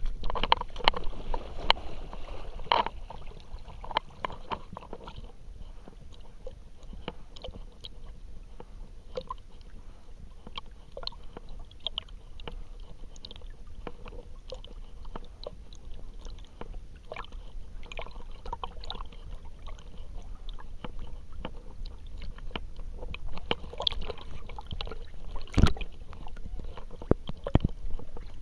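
Water sloshing and gurgling around a camera strapped to a swimming dog's harness, with a steady low rumble and many small splashy clicks. There is one sharp knock near the end.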